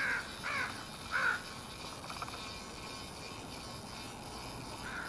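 A bird calling: three short calls in quick succession in the first second and a half, then two fainter ones near the end, over a faint steady background hiss.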